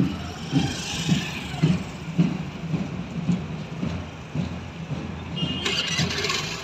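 Footsteps of a large column marching in step on a paved road, a regular beat of about two steps a second. A higher hissing noise joins near the end.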